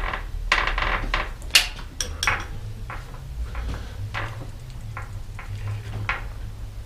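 Metal clicks and clinks of a wrench tightening a bicycle's rear axle nut after the wheel has been pulled back to tension the chain. A quick run of sharp clinks in the first two and a half seconds, then a few scattered clicks.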